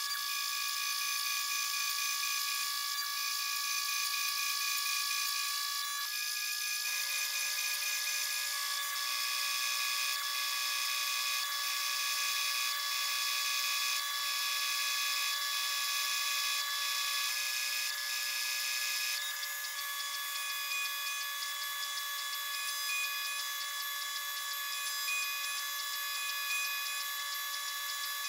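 Super Prolight 1000 CNC mill cutting aluminium plate, played back sped up twenty times so that the spindle and cutting sound becomes a steady high-pitched whine. The pitch steps to a new tone a few times as the cut changes.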